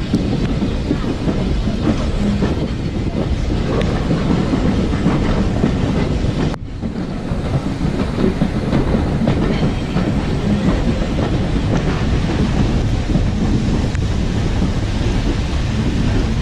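A moving passenger train running on the rails, heard from an open carriage window, with heavy wind buffeting the microphone. The sound drops out for an instant about six and a half seconds in.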